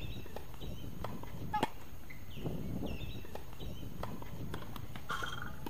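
A tennis ball struck by a racket: one sharp pop about a second and a half in, with a few fainter knocks later, over the low hum of an outdoor court.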